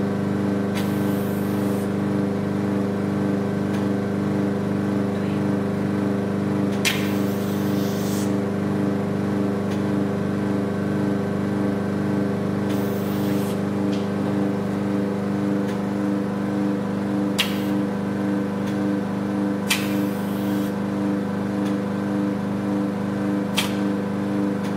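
NUBWAY Velashape vacuum body-contouring machine running with a steady, even hum from its suction pump. Short hisses of air come every few seconds as the small facial handpiece works on the skin.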